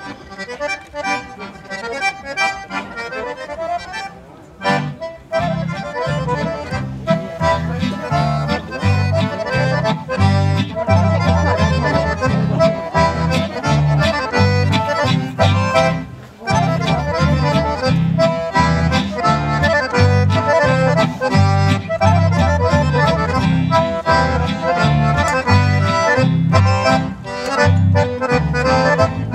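Two accordions playing a lively folk tune, backed by acoustic guitar and upright bass. The bass comes in with an even, pulsing beat about five seconds in.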